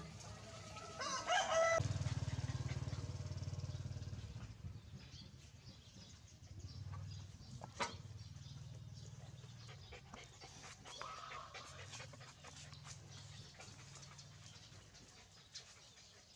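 An animal's call: one loud, short pitched cry about a second in. After it come a low steady hum, scattered small clicks and a single sharp knock about halfway through.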